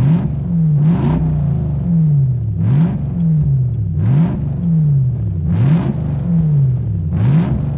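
Straight-piped 3.2-litre V8 of a 2001 Jaguar XJ8, its exhaust cut off at the manifold, blipped loudly about six times in a row. Each rev shoots up quickly and then sinks slowly back towards idle. It is heard from inside the cabin, with the open exhaust exiting beneath the driver's seat.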